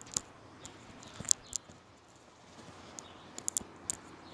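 Footsteps on a concrete footpath: sharp, irregular clicks, with a quick run of several clicks about three and a half seconds in, over a faint steady background hiss.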